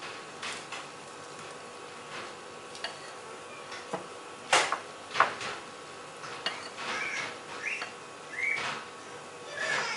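Silicone spatula folding sponge-cake batter in a glass mixing bowl: a run of soft scrapes and knocks against the glass, the loudest a little after halfway. A few short high chirps come late on.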